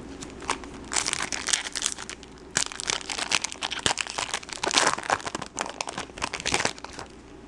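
Crinkling and tearing of a foil trading-card pack wrapper being opened and handled, in quick irregular crackles from about a second in until shortly before the end.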